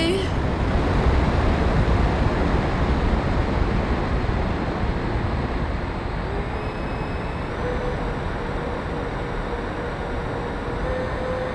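Wind rushing over the onboard camera of a Freewing AL37 electric ducted fan RC jet in flight, a dense low rumble and hiss. About six seconds in, a faint fan whine comes up and steps higher in pitch as throttle is added on the approach.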